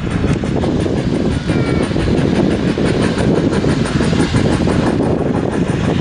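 FS Class 740 steam locomotive and its coaches rolling slowly into a station: a steady, loud rumble with a few wheel clicks over the rail joints.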